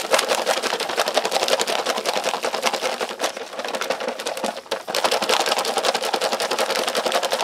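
Sealed foil drink pouch holding water and lumpy, sticky energy-drink powder being shaken hard to mix it: fast, steady rhythmic rustling and sloshing, with a short break about four and a half seconds in.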